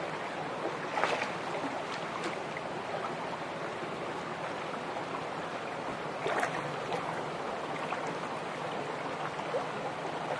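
Shallow, fast-flowing river running steadily over rocks, with a few short splashes from hands moving in the water: about a second in, just after two seconds, and around six and a half seconds.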